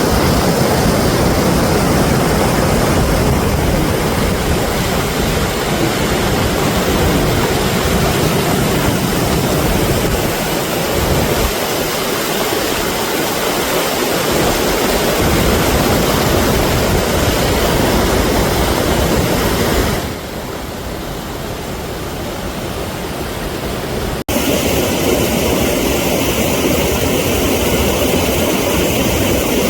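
Mountain stream rushing loudly over boulders, a steady roar of white water. The sound drops to a softer rush about twenty seconds in, then returns abruptly a few seconds later as a different stretch of rapids is heard.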